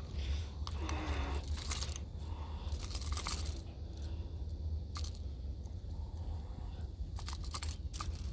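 Fishing pliers and a hard-bodied lure clicking and scraping as the lure is worked free from a fish's mouth, in a few irregular bursts, over a steady low rumble.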